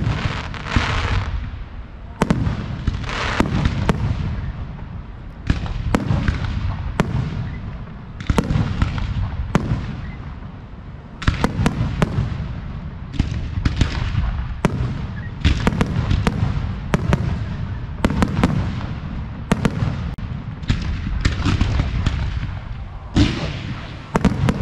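Fireworks display: aerial shells bursting in quick succession, a sharp bang every second or so, their rolling echoes overlapping into a low rumble.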